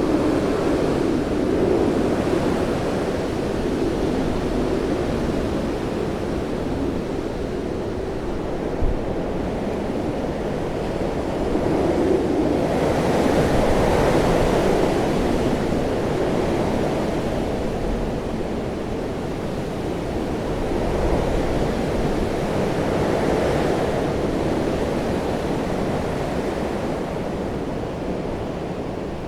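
Hurricane-force storm wind blowing steadily, rising and falling in slow gusts, strongest about halfway through, with a single brief knock about a third of the way in.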